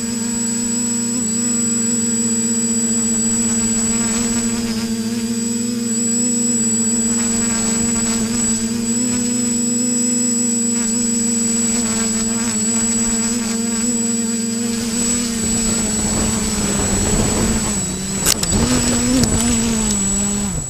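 TBS Discovery Pro quadcopter's electric motors and propellers humming steadily, heard from the camera on board, with a thin high whine above. In the last few seconds the pitch wobbles and a rushing noise rises as it comes down and lands, with a sharp click shortly before the motors cut off.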